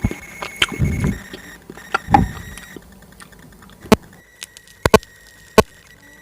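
Close-miked eating sounds: two soft, wet squishy bursts in the first couple of seconds, then four sharp clicks spread over the next two seconds.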